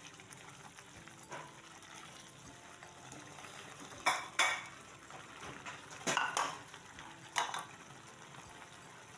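Chili-tomato spice paste sizzling steadily in a nonstick frying pan while pieces of fried tempeh are tipped in. A spatula clacks against the pan a handful of times, in pairs about four and six seconds in and once more shortly after.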